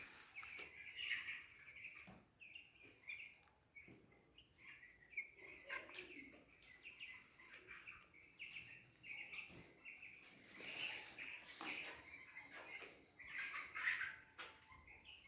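Young chickens about eleven days old peeping: many faint, short, high chirps overlapping without a break, a little louder in a few clusters.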